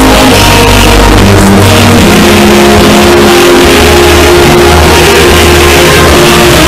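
Very loud music with long held notes over a bass line, its level pinned near full scale throughout.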